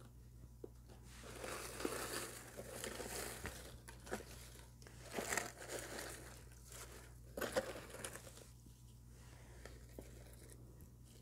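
Black crinkle-cut paper shred packing filler rustling and crinkling as hands pull it out of a cardboard box, in several handfuls, fainter near the end.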